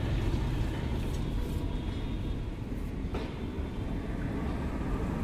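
A steady low rumble with a few faint ticks as the Bajaj Chetak scooter's front wheel is turned by hand to check the newly greased speedometer drive gear.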